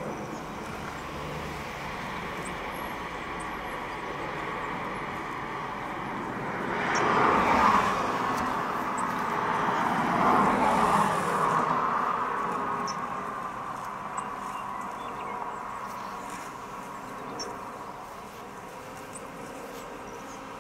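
A car passes on a road, its tyre and engine noise swelling about seven seconds in and fading away by about twelve seconds, over a steady outdoor background.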